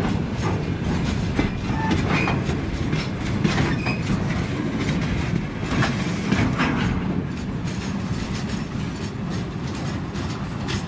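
Freight train wagons rolling past on the rails: a steady low rumble with the rhythmic clatter and clicks of the wheels over the rail joints, as the last covered boxcar goes by.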